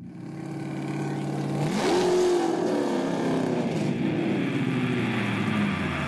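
Car engine running, then revving up sharply about two seconds in, its pitch falling slowly afterwards.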